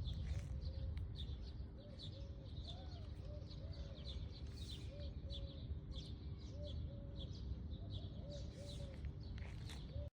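Birds chirping, with many short high chirps and a repeated low arched call, over a low rumble.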